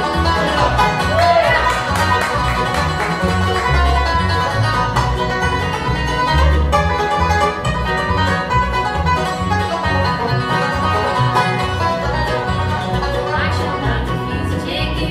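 Live acoustic bluegrass band playing: five-string banjo picking, with mandolin, acoustic guitar and upright bass.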